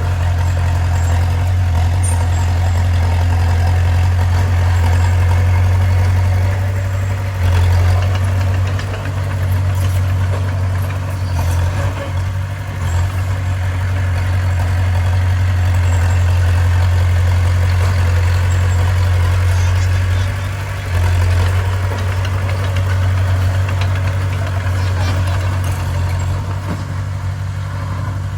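Bulldozer's heavy diesel engine running steadily, with a low hum and a few brief changes in load.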